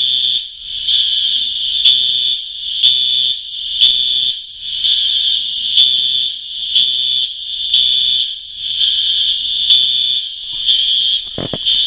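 Apartment building fire alarm sounding: a continuous high-pitched tone that pulses in a regular beat about once a second. A short bump is heard near the end.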